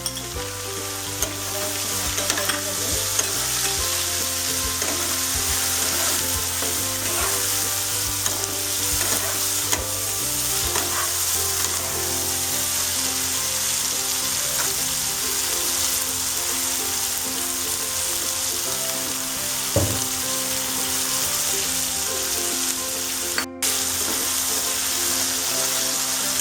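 Chicken pieces sizzling in hot oil in a kadai with ginger and garlic paste, stirred and sautéed with a spatula. The sizzle is a steady hiss that briefly drops out near the end.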